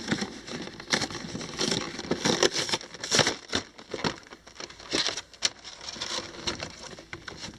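Action figure's cardboard box and plastic packaging being handled and opened: irregular crinkling, rustling and sharp plastic clicks as the figure is taken out of its tray.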